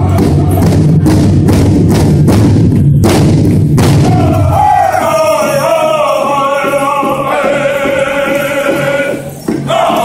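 Powwow drum group singing a women's buckskin song: several men's voices in unison over a steady beat on a big drum. About halfway the low voices drop out and higher voices carry a falling melody over softer drumbeats.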